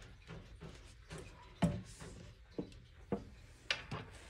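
Scattered light knocks and clicks of paint containers and a cup being handled and set down on a tabletop, about five in all, the loudest about one and a half seconds in.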